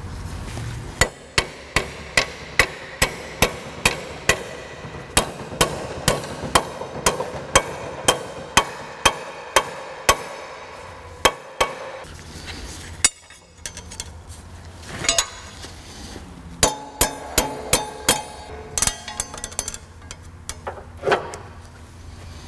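Hammer blows on a metal strap clamped in a bench vise, bending it into a bracket: a fast, even run of sharp strikes, about two and a half a second, for about ten seconds. After a pause, a few scattered knocks and handling sounds.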